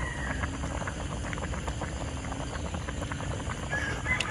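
Pot of sour fish soup simmering, a steady crackle of small bubbling pops, with a brief sharper sound near the end.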